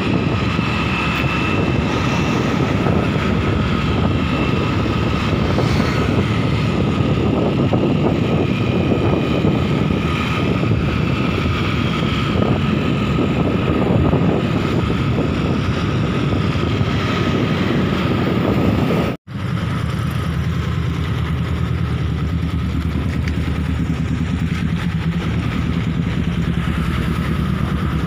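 Motorcycle engine running while riding along a road, mixed with wind and road noise on the microphone. About two-thirds of the way through the sound cuts out for an instant, and after it a steadier, lower engine hum continues.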